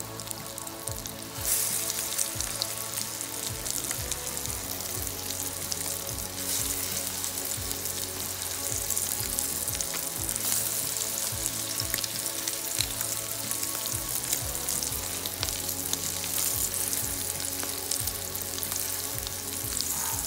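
Salmon croquettes sizzling and crackling as they fry in a pan, the sizzle growing louder about a second and a half in.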